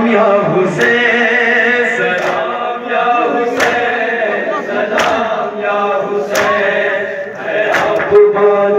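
Male voices chanting a noha, a Shia lament, in unison over a microphone. Sharp, even strikes come about every second and a half: the mourners beating their chests in matam, in time with the chant.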